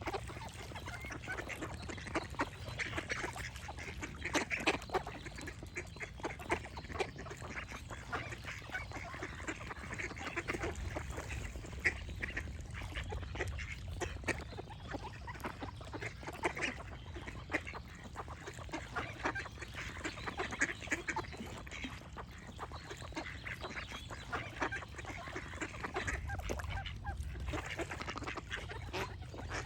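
Ducks quacking in many short, overlapping calls, near-continuous throughout.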